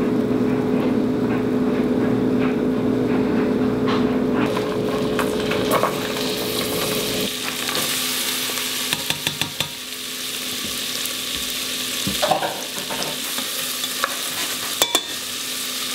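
Diced onion, carrot and celery sizzling in butter in a hot saucepan and being stirred: the sweating of a mirepoix. A steady hum sits under it, strongest for the first four seconds or so, and a few sharp clicks come through past the middle and near the end.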